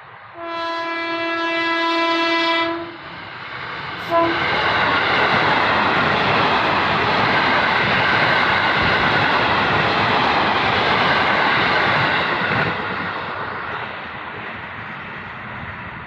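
KRL electric commuter train horn: one long steady blast of about two and a half seconds, then a short second toot about four seconds in. The train then runs past close by, its wheels and carriages rushing loudly for about eight seconds before easing off near the end.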